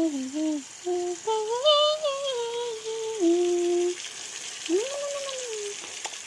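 A person humming a tune in held notes that step up and down, with a pause partway through, over the steady sizzle of pork pieces frying in hot oil in a kawali.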